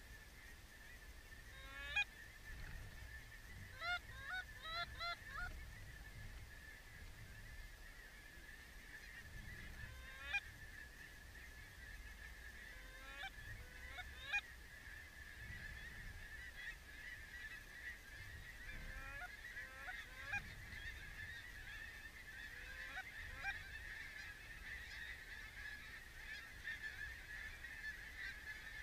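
Geese honking: single loud honks and short runs of honks over a steady chorus of many distant birds. The chorus grows busier in the second half as the flocks circle.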